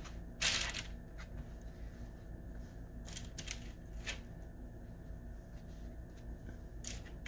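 Hands handling food: about five short, soft rustles and brushes as shredded chicken is laid onto a pita bread on a foam plate, over a faint steady hum.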